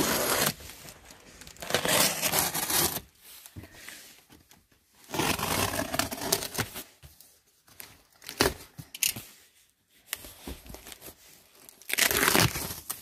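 Cardboard shipping box being torn open by hand, with its packing crinkling, in several bursts of a second or two with short pauses between.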